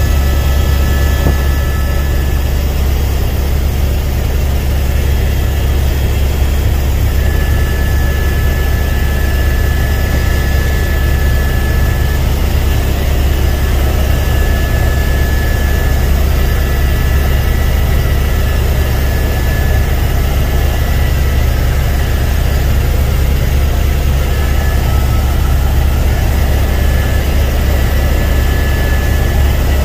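Helicopter cabin noise: the rotor and turbine engine's steady loud drone with a strong low hum, and a faint high whine that comes and goes.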